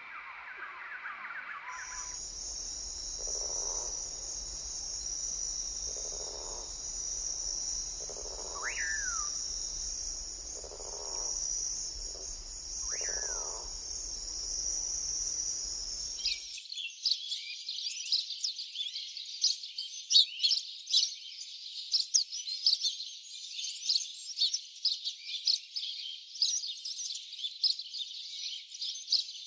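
Bird calls over a steady, high insect-like drone, with a few low calls and two whistled notes that rise and fall. About sixteen seconds in, this cuts abruptly to rapid, continuous high-pitched chirping from birds.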